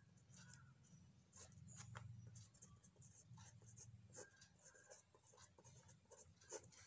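Faint scratching of a pen writing on a paper form, in short irregular strokes.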